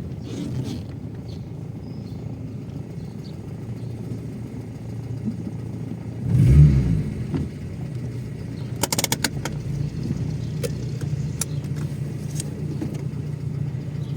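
Audi 80 B4's 2-litre four-cylinder petrol engine idling fully warm, with a steady low hum. It swells into a brief louder rumble about six and a half seconds in. From about nine seconds there are scattered sharp ticks and clicks, the kind of knock the owner puts down to the hydraulic lifters.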